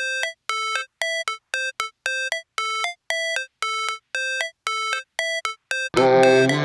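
Electronic music: a repeating pattern of short, bright synthesizer notes, about two a second, then a fuller beat with bass comes in about six seconds in.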